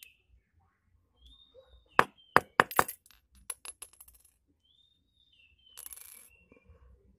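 Small metal parts of a diesel fuel injection pump clinking together and onto a hard surface: a quick run of sharp, ringing clinks about two seconds in, then a brief scrape near the end.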